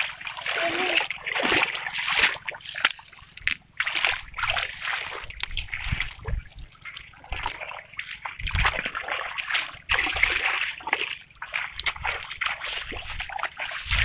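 Irregular splashing and sloshing of muddy water in uneven bursts, from hands digging into a waterlogged mud bank.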